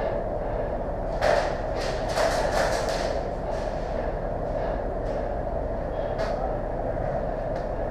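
Airsoft guns firing: sharp single shots and a short rapid burst about two seconds in, over a steady rumbling hum.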